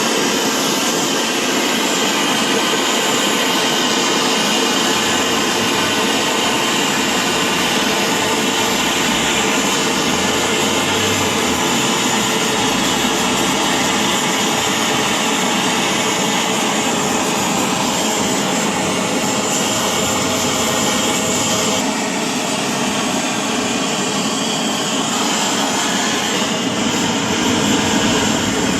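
A loud, steady rush of machine or air noise with a faint whine in it, unbroken throughout.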